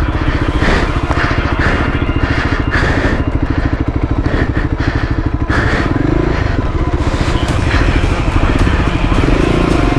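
Single-cylinder engine of a VOGE 300 Rally adventure motorcycle running at low revs with a fast, even pulse, as the bike is manoeuvred on a loose-stone slope.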